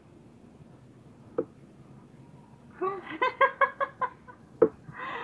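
A person laughing in a quick run of short, choppy pulses for about a second and a half after a quiet start. Two sharp clicks, one before the laugh and one right after it.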